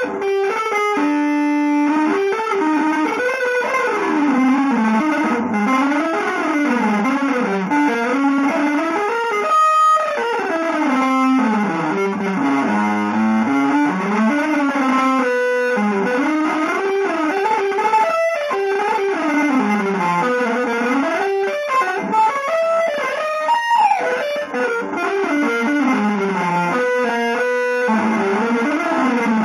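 Electric guitar playing winding single-note lines that climb and fall in fast runs, with short breaks between phrases.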